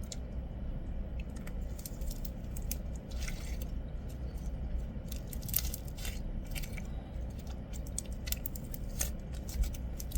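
Slime being handled and pressed by hand, giving scattered small crackles and clicks.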